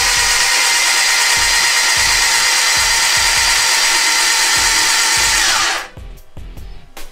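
Starter motor cranking a fully worked Toyota 7A-GE engine on a stand, a steady high whine over rhythmic low pulses from the compression strokes, cranking to build oil pressure, which reaches 62 psi. The whine falls in pitch and stops about six seconds in as the starter is released.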